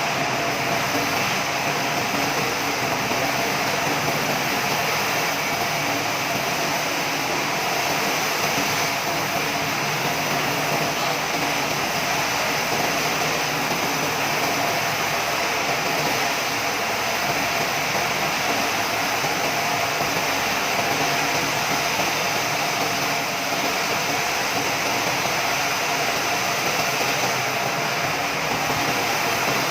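Sawmill machinery running steadily, an even mechanical noise with a thin steady whine that holds level throughout.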